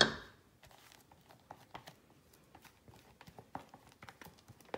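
Spatula scraping and tapping against a stainless steel stand-mixer bowl, with a sharp knock right at the start that quickly fades, then scattered soft clicks and scrapes as a plastic tub is handled.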